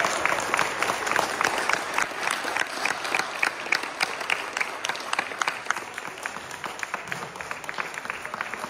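Audience applauding, many separate hand claps, slowly dying down.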